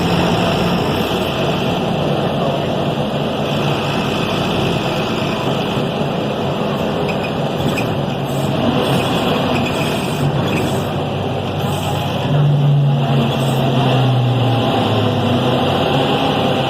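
Deutz BF6M 1013 inline-six turbodiesel of a Tatsa Puma D12 city bus running steadily. About twelve seconds in its note grows louder and then falls in pitch.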